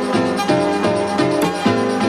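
Music from a DJ set: a fast melody of plucked, guitar-like notes, about four notes a second.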